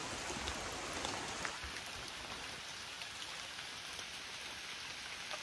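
Steady rain falling on dense jungle foliage, with scattered single drops. A faint high thin tone joins about a second and a half in.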